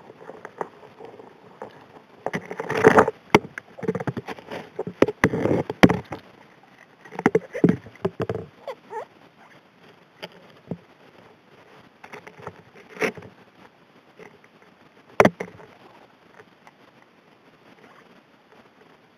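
Rocks and gravel clattering and knocking against the nozzle of an M625 hand gold dredge as they are sucked in, picked up underwater. Clusters of clacks come thick in the first half, then only scattered knocks, with one sharp knock past the middle.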